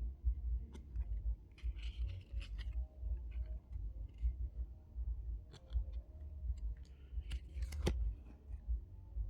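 Packaging being handled during an unboxing: scattered clicks and short crinkly rustles, busiest about two seconds in and again near the end, with one sharp click about eight seconds in, over a constant low rumble of handling noise on the microphone.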